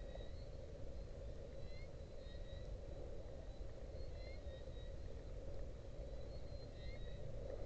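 Outdoor ambience: a steady low rumble with a bird's short chirping calls repeating every second or so.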